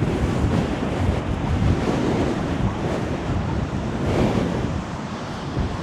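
Strong gusting wind buffeting the action camera's microphone, over the surge of a rough sea breaking against the sea wall.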